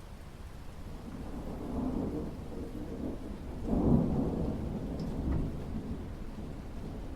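Thunder rumbling low, swelling about a second in, peaking near the middle and slowly rolling away, over light rain and a few drips.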